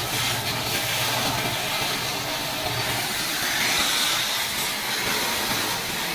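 Steady, loud hissing noise with no clear rhythm, and a faint low hum under it in the first second.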